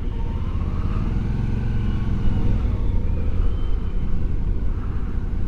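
Motorcycle engine running as the bike rides along, a steady low rumble.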